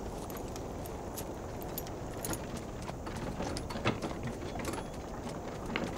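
Light, scattered metallic clinks from horse harness and bridle fittings being handled, over a steady outdoor background hiss.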